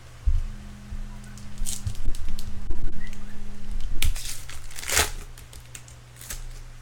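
Crinkling and tearing of a trading-card pack wrapper being handled and opened: a run of sharp crackles, the loudest about five seconds in.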